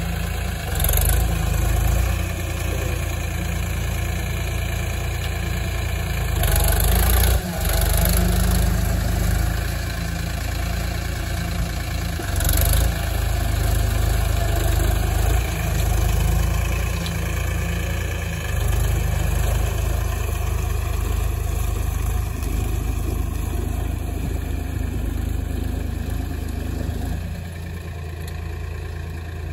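Diesel engine of a VST Shakti Viraaj 9045 tractor running steadily under load as it pulls a puddler through a flooded paddy field on cage wheels. A few brief loud rushes of noise come over it, and it grows fainter near the end as the tractor moves off.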